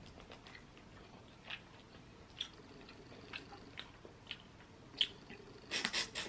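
Close-miked eating sounds from a seafood-boil mukbang: soft chewing and wet mouth smacks, a few scattered clicks, then a louder run of them near the end.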